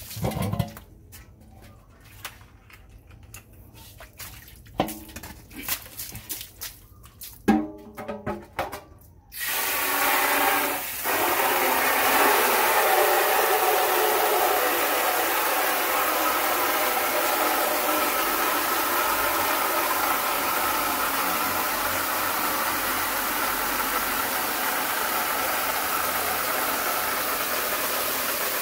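A few scattered knocks and clatters. Then, about nine seconds in, water gushes steadily from a faucet on a PVC pipe into a metal basin, splashing into the water pooling in it.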